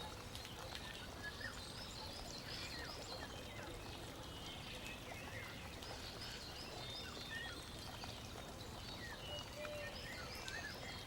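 Faint bird chorus: many small birds chirping and twittering in quick short calls over a steady soft hiss.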